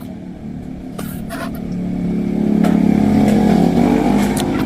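A motorcycle engine passing by, growing louder for a couple of seconds and then easing off, with a few sharp clicks.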